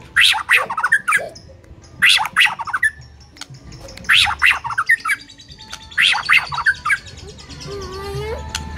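White-rumped shama (murai batu) singing in an agitated, full-voiced way: loud, harsh, rapid phrases repeated about every two seconds. Near the end come lower whistled notes that glide up and down.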